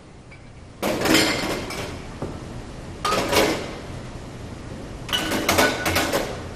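Glass liquor bottles clinking and clattering against each other and the shelf as they are set back in place, in three bursts: about a second in, about three seconds in and about five seconds in.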